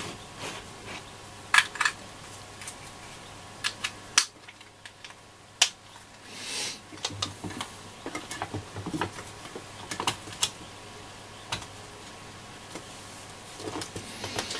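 Scattered clicks and small knocks of a PP9 9-volt battery being clipped to its snap connector and fitted into a transistor radio's metal chassis, over a faint steady hum.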